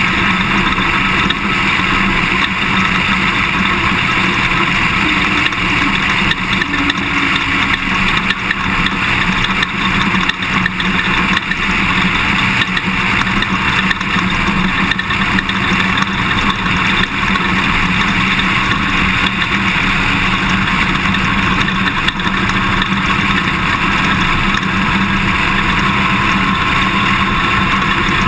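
Toyota Tundra prerunner driving over rough dirt: steady engine and tyre noise with constant small rattles and jolts.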